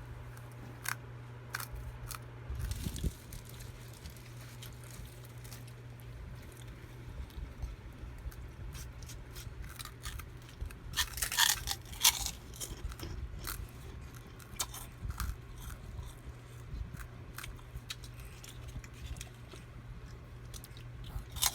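Crackers being bitten and chewed: scattered crunching crackles with a louder cluster about halfway through, over a steady low hum.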